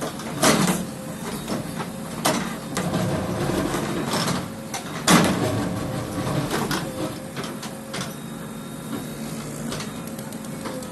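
Sharp knocks, three louder ones in the first half and fainter ones later, over scraping and rustling noise and a faint steady hum.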